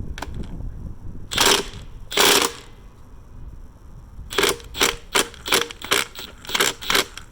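Battery impact wrench hammering on a connecting-rod cap bolt of a Nissan KA24DET engine: two longer bursts, then a quick string of about nine short trigger pulls. The bolt does not break loose.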